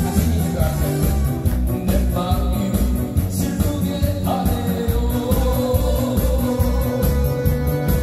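A singer's amplified voice sings a Korean trot song through a microphone over a loud backing track with a steady beat, holding a long note from about halfway in.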